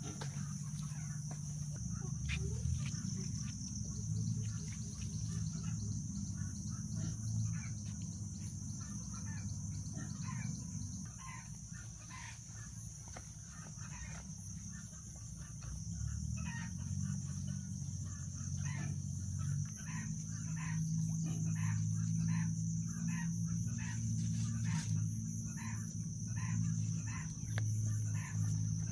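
Chickens clucking among steady high insect drone, over a low steady hum that grows louder in the second half.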